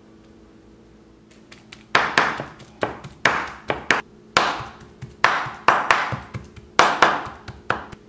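Back of a Chinese cleaver pounding raw shrimp into a paste on a wooden cutting board. About a dozen sharp, irregular whacks begin about two seconds in, and each rings briefly.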